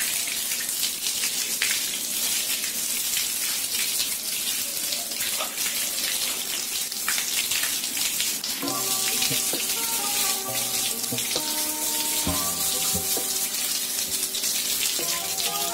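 Water from a garden hose spraying onto a mountain bike's frame, wheels and drivetrain and splashing onto a tiled floor, a steady hiss of spray. Background music with held notes comes in a little past halfway.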